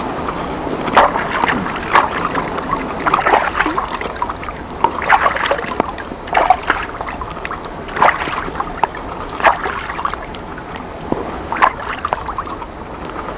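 Water sloshing and splashing in repeated strokes, about one every second or so, over a steady rush of water, with a thin steady high whine behind it.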